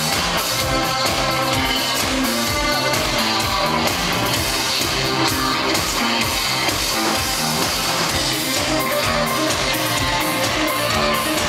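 Live electronic dance-punk band playing a song on a stage sound system: a steady driving beat under synthesizers and guitar.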